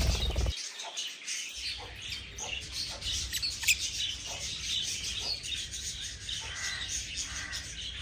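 Small aviary birds, lovebirds among them, chirping: many short high chirps overlapping, with a couple of sharp clicks about three and a half seconds in.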